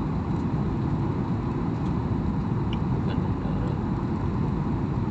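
Steady low rumble of an airliner's cabin noise, engines and rushing air heard from inside the cabin, during the descent to land.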